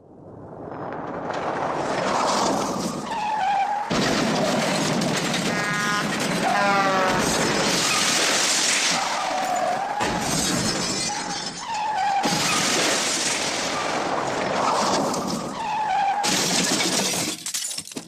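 Studio sound effect of a long smashing crash: continuous breaking and shattering debris, with abrupt joins about every six seconds and a brief squeal partway through.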